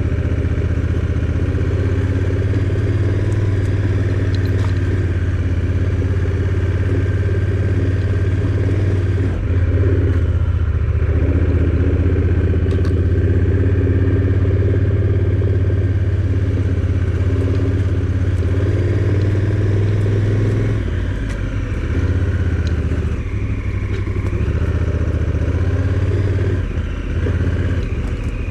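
A motor vehicle being driven along a back road: the engine runs steadily with road noise, easing off briefly a few times.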